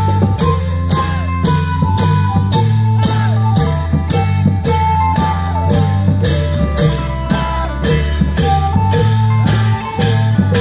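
Thai klong yao long-drum ensemble playing: a steady beat of sharp cymbal-like strokes about two to three a second over deep drum tones, with a pitched melody line above.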